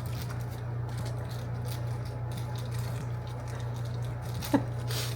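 Faint rustling and crinkling of small blind-box pin packaging being handled and opened over a steady low room hum, with one short sharp tick about four and a half seconds in.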